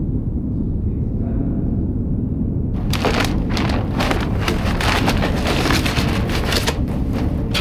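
A steady low rumble, then about three seconds in a sudden start of dense crackling and rustling: a rigid plastic tub and the plastic sheeting under it being flexed and handled as gloved hands work a frozen block out of the tub.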